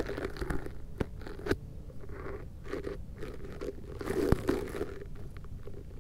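Crunching and rustling from a hand stroking a cat lying in dry grass, with three sharp clicks, two close together early and one past the four-second mark.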